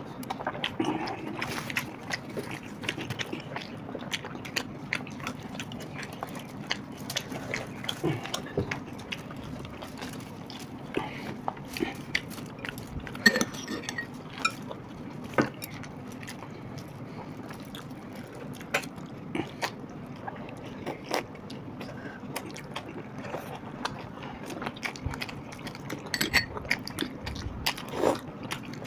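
Close-miked eating sounds of parathas with potato curry: chewing, soft flatbread tearing, and scattered small clicks with the odd clink of a spoon on a bowl.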